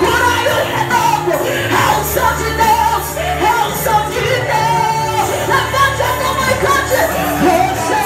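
Live Pentecostal worship music: a woman's amplified voice singing over instrumental accompaniment with sustained low bass notes.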